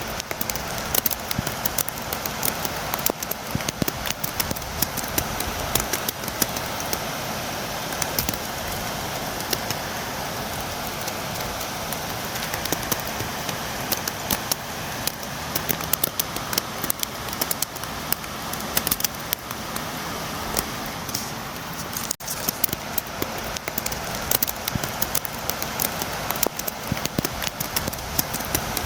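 Steady rain with many sharp drops tapping on a window, a dense patter over a constant hiss that dips out briefly about 22 seconds in.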